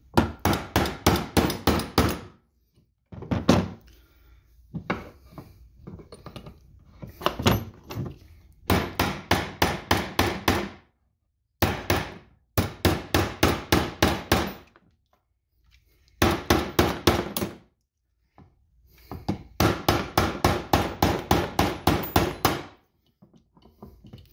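Hammer striking a brass punch to drive a part out of an AR-15 folding stock adapter held in a bench block. It comes in bursts of quick taps, about five a second, with short pauses between bursts.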